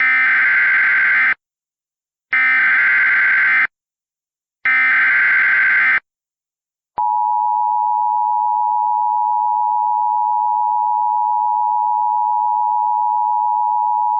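Emergency Alert System header tones: three bursts of warbling digital data, each a little over a second long with about a second between them, then a steady alert tone starting about seven seconds in. They are the header of a National Weather Service flash flood warning.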